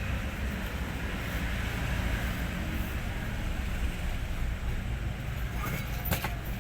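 Hino 500 truck's diesel engine running with a steady low rumble, and a few sharp clicks near the end.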